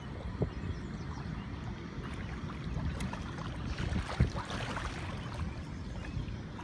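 Wind buffeting the microphone over splashing water, with a louder stretch of splashing and a sharp knock about four seconds in.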